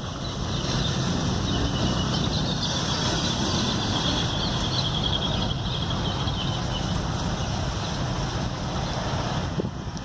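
A motor vehicle's engine running steadily, with wind noise, and a high rapid fluttering tone over it for a few seconds in the middle.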